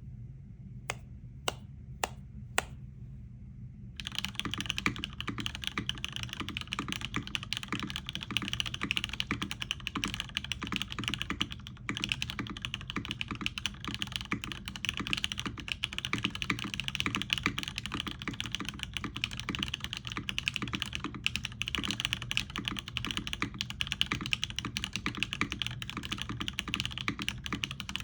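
Mechanical keyboard with Cherry MX Nixie switches, an aluminum plate and PBT dye-sub keycaps being typed on: four single keystrokes, then fast continuous typing from about four seconds in, with a brief pause near the middle.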